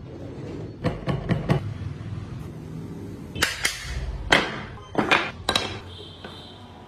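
Small wooden parts knocked together and set down on a table: a quick run of four sharp clacks about a second in, then several louder single knocks spread over the next few seconds.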